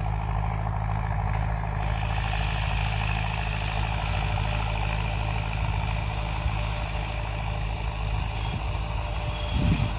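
Tractor engine running steadily at a constant speed, with a short thump near the end.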